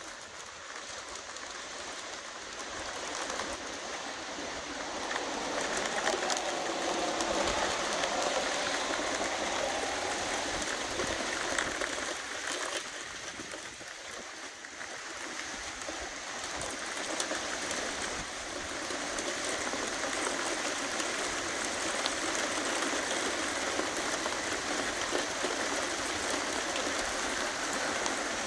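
Wind gusting through the leaves of tall trees ahead of a thunderstorm: a steady rushing hiss that builds over the first several seconds, eases briefly around the middle, then holds.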